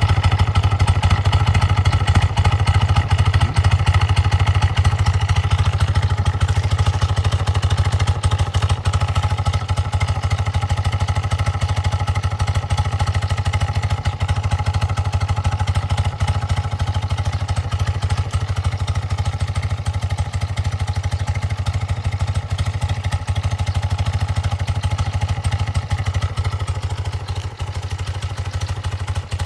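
BMW R100RS's air-cooled boxer twin running steadily through a gutted collector box and the stock silencer, with a deep, even exhaust note and no revving. It grows slightly quieter toward the end.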